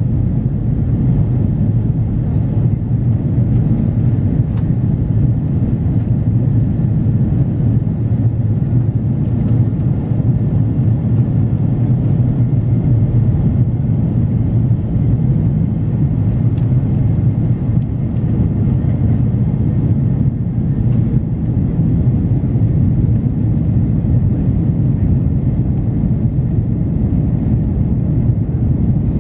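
Steady low rumble of an Airbus A330-300 airliner's jet engines and airflow, heard inside the passenger cabin in flight, with a faint steady whine above it.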